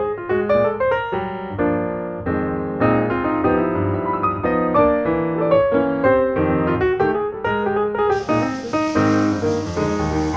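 Background music played on piano, a steady run of notes; about eight seconds in, a hiss-like layer joins the music.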